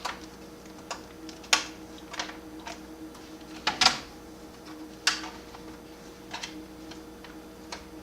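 Plastic clips of an HP 255 G5 laptop's case snapping and clicking as the keyboard assembly is pried loose from the bottom cover: about eight sharp, irregular snaps, the loudest just before halfway.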